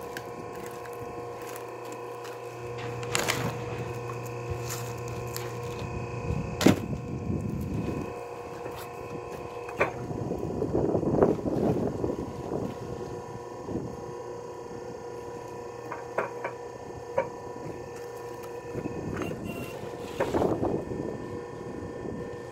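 Electric-motor log splitter running with a steady hum while logs are split, with sharp knocks and bursts of wood cracking as the pieces give way.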